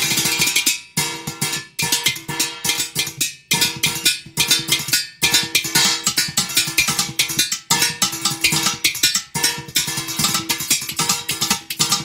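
Fast rhythmic percussion beaten out on steel kitchen utensils (pots, a pitcher and a wok) with hands and a spoon, the strikes ringing metallically, with a few short breaks in the beat.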